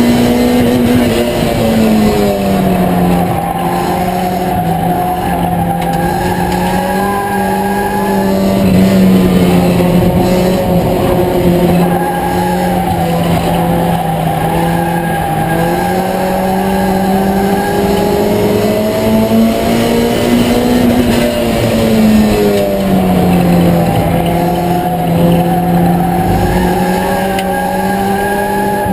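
Ford Escort four-cylinder race engine running hard, heard from inside the cockpit. Its pitch sags twice as the driver lifts for the turns, then climbs again on the straights.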